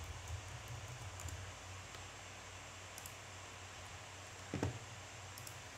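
A few faint, sparse computer keyboard clicks over a low steady hum, with one louder dull thump about four and a half seconds in.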